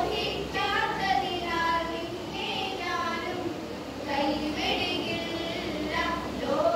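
Three girls singing a song together, with some notes held for about a second.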